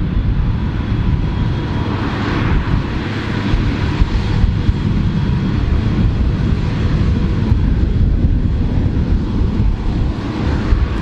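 Fendt Vario 820 tractor running steadily under load while its Dragone butterfly mulcher shreds standing cover crop: a continuous low engine rumble under a rushing hiss of chopped material that swells now and then.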